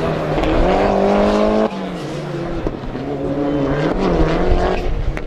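Rallycross Supercar engine under hard acceleration, its pitch climbing until it drops sharply at a gear change or lift-off about a second and a half in. It then rises again with some wavering as the car works through a corner.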